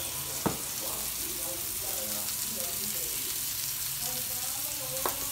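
Beef burger patty sizzling on a hot griddle pan, a steady frying hiss. Two sharp knocks sound, one about half a second in and one near the end.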